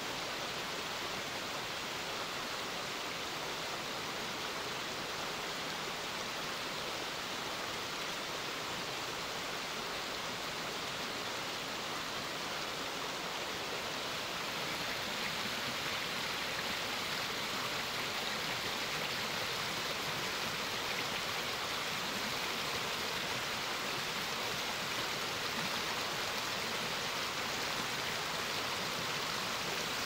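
Steady rush of a low, wide spring-fed waterfall, with groundwater pouring out through gaps in a mossy rock face. It grows a little louder about halfway through.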